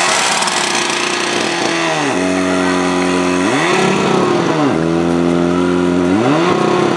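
PS8 portable fire pump engine running hard, its pitch swelling up and falling back twice, about three and a half and six seconds in.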